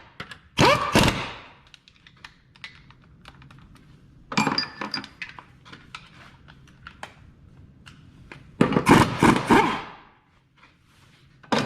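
Hand ratchet clicking in several quick bursts, with metal clinks in between, as 14 mm bolts and nuts are run tight; the longest, loudest burst comes about two-thirds of the way through.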